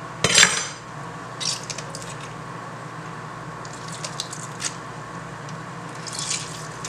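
A knife knocks once on a cutting board just after the start. Then a lemon is squeezed by hand over a metal strainer, and its juice squishes and drips through in a few short spurts.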